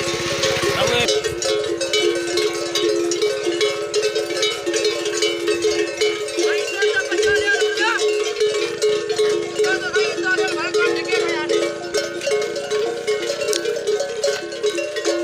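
Camel bells ringing and clanking continuously, many bells at once jangling out of step as the camels walk.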